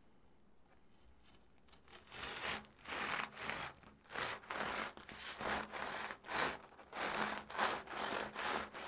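Serrated bread knife sawing back and forth through a baked bagel's crisp crust, a run of rasping strokes about two a second that starts about two seconds in.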